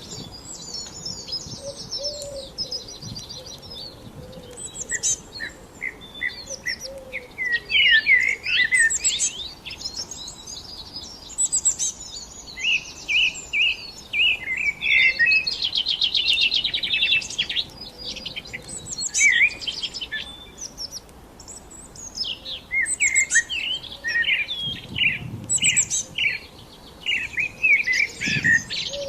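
Several songbirds singing together: a continual mix of chirps, whistled glides and rapid trills, with a fast buzzy trill of quickly repeated notes about halfway through.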